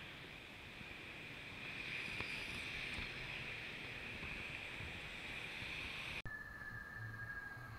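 Steady rushing outdoor ambience of wind and street noise, played back at double speed. It cuts off abruptly about six seconds in, and a quieter ambience with a faint steady whine follows.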